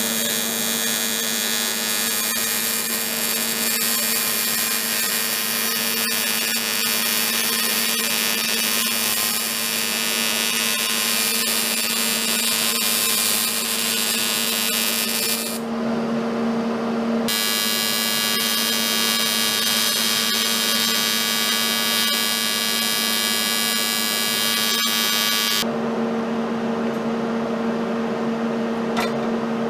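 TIG welding arc on a cracked aluminium Rotax 125cc cylinder: a steady hiss with a high whine, cut off twice as the torch is released, once about halfway through and again near the end, over the constant hum of the welding machine.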